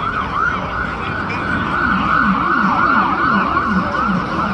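Emergency vehicle siren in fast yelp mode, its pitch sweeping rapidly up and down about three times a second. A second, lower sweeping tone joins about two seconds in.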